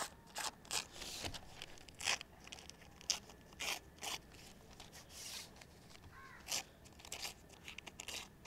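Newspaper being torn into strips along the edge of a ruler, in a string of short rips and rustles.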